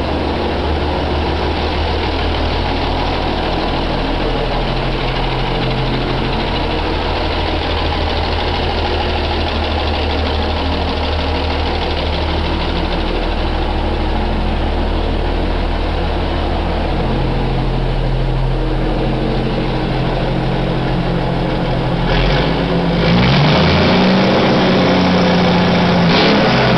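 1975 Autocar truck's 350 Cummins inline-six diesel idling steadily through its new exhaust. About 22 seconds in it is revved: the pitch rises and it runs louder at a higher speed to the end.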